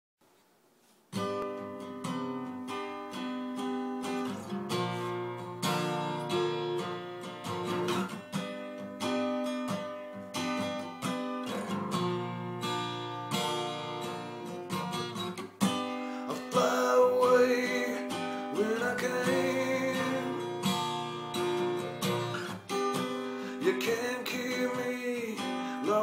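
Steel-string acoustic guitar strummed in a song intro, starting about a second in. About two-thirds of the way through, a man's singing voice joins it.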